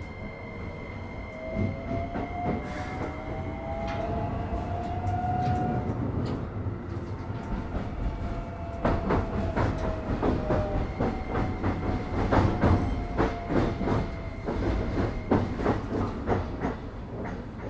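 Keikyu 1000 series (1890 subseries) electric train accelerating under power, its traction motor whine rising in pitch over the first several seconds over a steady rumble. From about nine seconds in, wheels clatter over rail joints and points in quick clicks.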